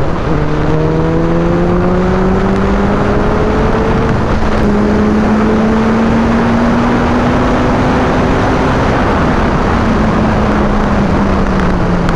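Suzuki Hayabusa's 1340 cc inline-four engine pulling hard in a high gear, its pitch rising slowly for about eight seconds and falling back near the end as the throttle eases. Steady wind rush at speed lies under it.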